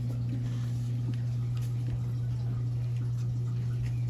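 Steady low electrical hum with faint scattered ticks.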